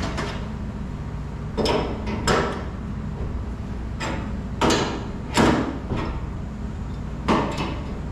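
Sharp knocks and clatters from hand work on a commercial kitchen sink faucet, five or six of them spaced irregularly, over a steady low hum.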